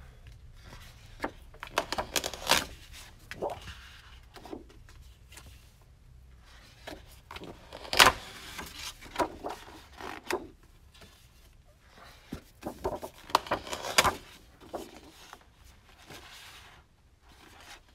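Sheets of 12x12 scrapbook paper being handled: rustling, sliding and flapping as they are picked up, turned over and laid down, in irregular short bursts, the sharpest about 8 seconds in.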